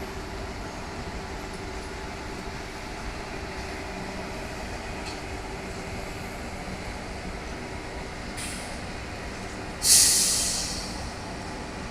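Steady rumble and hum of a train, then about ten seconds in a sudden loud hiss of compressed air venting from the pneumatic brake system, fading over about a second. A shorter, fainter hiss comes just before it.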